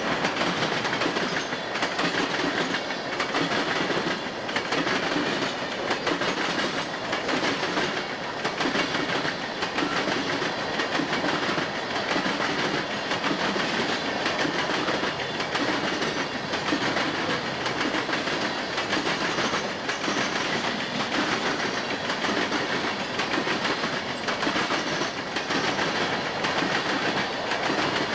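Freight cars of a Florida East Coast Railway train rolling past close by: a steady rumble and rattle of steel wheels, with repeated clickety-clack as the wheels cross the rail joints.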